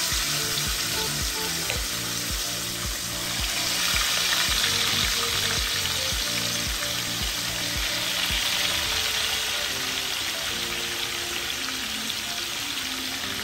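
Marinated chicken pieces sizzling steadily as they shallow-fry in hot oil in a frying pan. Faint background music with a steady beat runs underneath.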